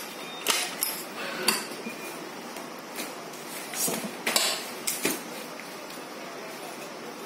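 Badminton racket stringing machine being handled: a series of sharp clicks and clacks of metal and plastic clamps and fittings, about eight in the first five seconds, then it goes quieter.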